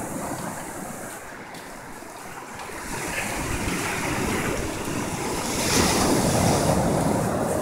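Ocean surf washing in, an even rushing that swells louder about halfway through as a wave comes up, with wind rumbling on the microphone.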